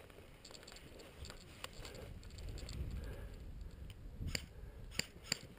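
G&G CM18 Mod1 electric airsoft rifle firing three single shots near the end, each a short sharp snap, the last two close together, with low rustling of movement before them.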